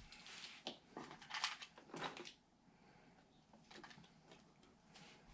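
Faint clicks and rustling of computer parts being handled and fitted into a PC case, busiest in the first two seconds, then mostly quiet with a few light ticks.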